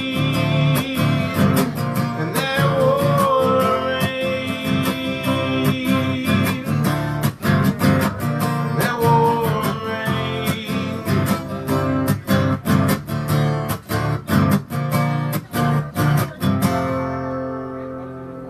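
Acoustic guitar strummed in a steady rhythm, ending the song on a final chord that rings and fades away near the end, with a male voice singing a few held notes over the strumming.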